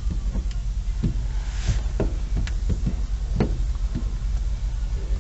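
A series of light knocks and taps on a truck's sliding back window glass as tint film is pressed and squeegeed on by hand, over a steady low hum.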